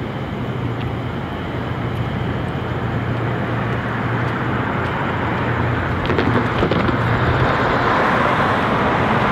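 Road traffic noise: a steady rush of passing vehicles with a low hum, slowly getting louder toward the end.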